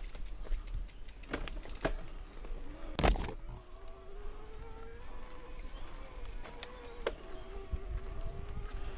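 Mountain bike rolling down a rooty dirt trail: rattles and clicks over the bumps, with one loud knock about three seconds in, then a steady buzzing tone through the rest.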